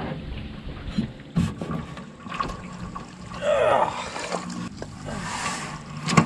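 Knocks and bumps of a man moving about in a canoe, with hands and body striking the hull and gunwales. About three and a half seconds in comes a brief falling cry, the loudest sound, followed near the end by a rush of wind or splashing.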